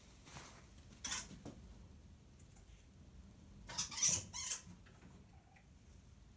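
A least weasel scrabbling and scurrying, heard as short scratchy rustles: one about a second in and a louder cluster around the middle.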